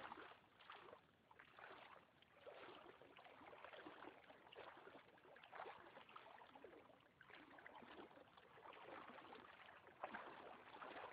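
Faint lapping and trickling of river water against a canoe, in many small irregular splashes.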